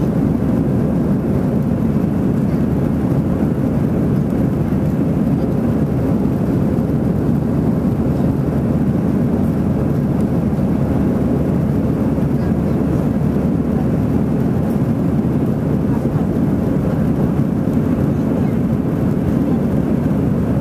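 Airbus A319 cabin noise during the climb after takeoff: the engines and rushing air heard from inside the passenger cabin as a deep, even rumble that holds steady throughout.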